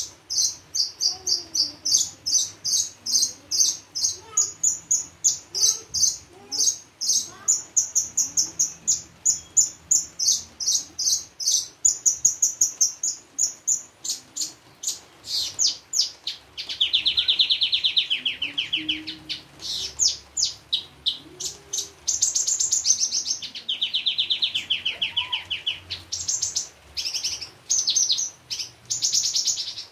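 Branjangan (Australasian bush lark) singing nonstop: quick, sharp high notes at about three or four a second, changing about halfway through to long, fast buzzing trills lower down between runs of high notes. This is the rich song with mimicked phrases ('isian') prized in a branjangan.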